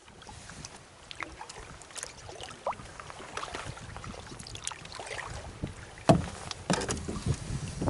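Canoe on the water, with small splashes and drips of water around the hull and paddle, light ticks and knocks, and one sharp knock about six seconds in.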